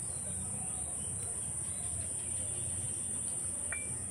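Insects, likely crickets, trilling in one steady high-pitched drone, over a faint low background hum.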